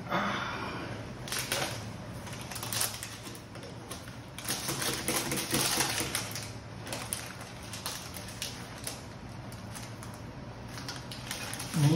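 Paper wrapping crinkling and rustling as a cake is unwrapped, with scattered light clicks and taps of a knife against the dish; the crinkling is busiest in the middle.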